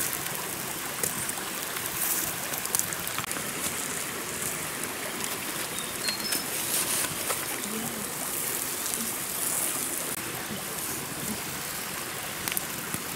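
Stream water running over rocks, a steady rushing hiss, with scattered sharp crackles from the wood fire.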